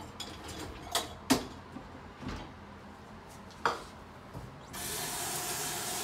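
Dishes clinking and knocking as they are handled at a kitchen sink and dishwasher, with three sharp clatters. About three-quarters of the way through, a kitchen tap is turned on and water runs steadily into the sink.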